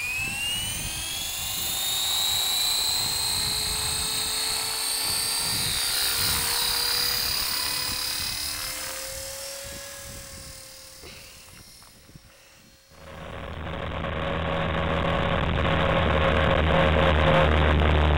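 Honey Bee King 3 electric RC helicopter spooling up, its motor and rotor whine rising steeply in pitch over the first few seconds, then holding steady in flight and fading as it climbs away, with wind buffeting the microphone. About 13 seconds in the sound switches abruptly to a muffled, steady motor hum and rumble.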